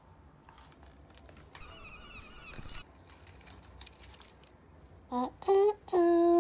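Faint, scattered crinkling of a paper wrapper and a small foil candy packet being handled.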